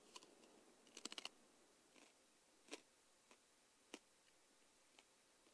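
Near silence with faint, scattered clicks: a quick run of four or five about a second in, then single ticks every half second to a second.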